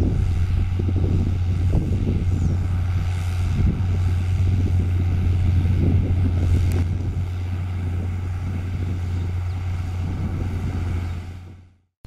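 New Holland T6.130 tractor's diesel engine running steadily under load while pulling a 24-disc Baldan offset harrow through the soil. The sound fades out quickly just before the end.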